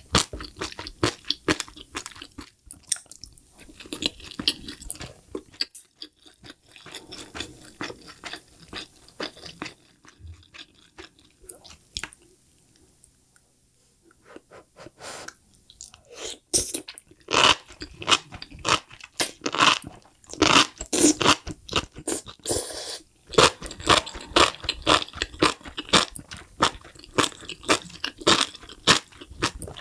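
Close-miked chewing of enoki mushrooms in a spicy sauce: a fast run of short, wet, crunchy chews. It fades to near silence for a few seconds just before the middle, then picks up again, louder, with a new mouthful that includes fried quail egg.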